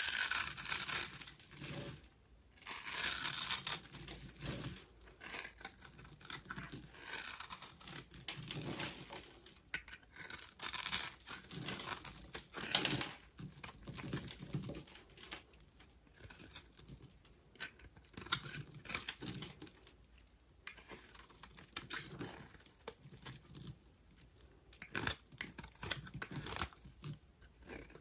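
A knife carving dry bar soap into cubes: crisp, crunchy crackling strokes come in bursts with short quiet gaps. The loudest bursts are at the very start, about three seconds in and about eleven seconds in, with softer cuts between them.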